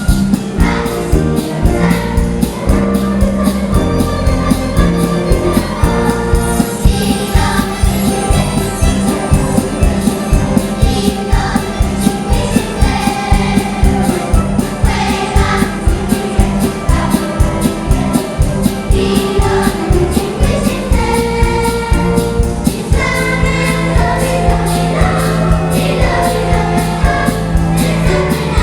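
Live band music with a steady beat and group singing.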